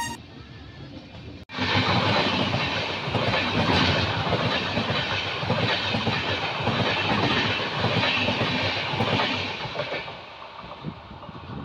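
Passenger train passing at speed on the adjacent track, close by: loud rushing of wheels and coaches with fast clattering over rail joints, starting abruptly about a second and a half in and easing off near the end to the quieter running noise of the train being filmed from.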